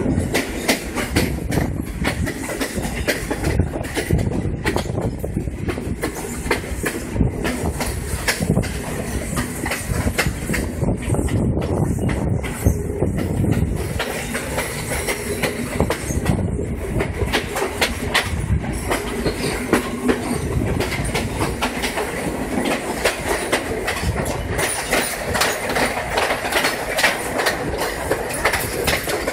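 Passenger train carriage running along the track, its wheels clattering irregularly over the rail joints, heard at an open carriage door.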